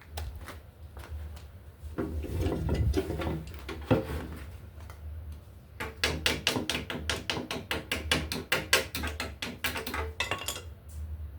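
Metal clicking and tapping from hand work on a paint spray gun, over a steady low hum. About four seconds in there is a sharp knock, and from about six seconds a rapid run of clicks, several a second, goes on for about four seconds and then stops.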